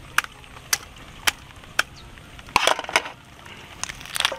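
Cleaver chopping through a whole bantam chicken on a wooden chopping board: four sharp single chops about half a second apart, then a louder cluster of cracking bone about two and a half seconds in, and more chops near the end.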